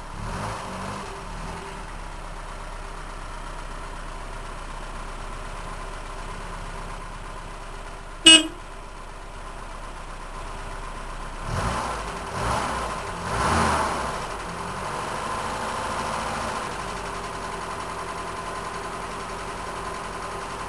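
A 1986 Opel Rekord E2's carburetted 2.4-litre C24NE four-cylinder engine (Omega A engine on a Varajet II carburettor) running at idle under an open bonnet, which the owner says sounds knackered. It is revved briefly three times a little past the middle, and one short loud blip cuts through about eight seconds in.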